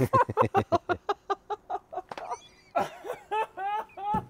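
Two people laughing hard: a run of quick, breathy bursts of laughter at about six a second, turning into higher, pitched giggles in the second half.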